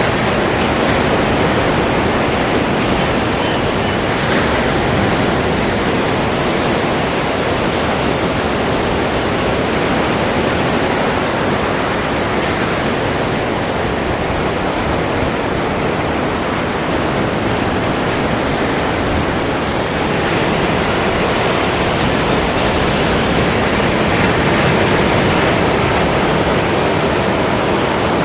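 Ocean surf: a continuous, dense wash of breaking waves that swells a little now and then without ever easing off.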